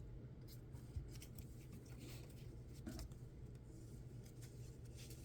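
Faint handling of trading cards: soft sliding and rustling with a couple of light taps, over a low room hum.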